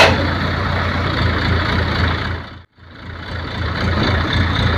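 ACE 12XW mobile crane's engine running steadily while its boom is raised. The sound fades out to silence for a moment a little past halfway, then comes back.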